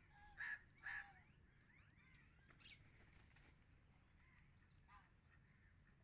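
Two loud bird calls about half a second apart, then fainter calls from other birds.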